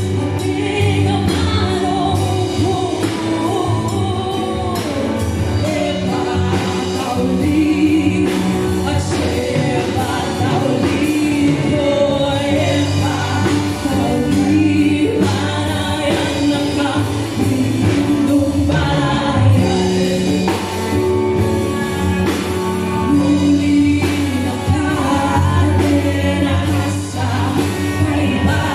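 Live band playing a song with singing: drum kit, electric bass, electric guitar, acoustic guitar and keyboard under female vocals.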